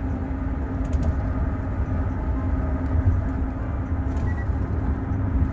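Steady low rumble of a car on the move, heard from inside the cabin, with a constant low hum running under it.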